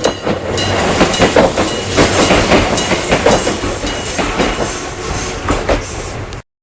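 Kumamoto Electric Railway train passing over a level crossing, its wheels clattering over the rail joints, with the crossing's electric bell ringing faintly underneath. The sound cuts off abruptly just before the end.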